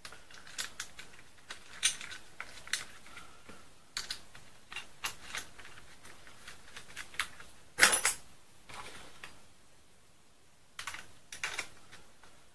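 Irregular small clicks and taps of bolts, nuts and metal parts being fitted by hand to a battery fuse holder and its bracket, with a louder clack about eight seconds in.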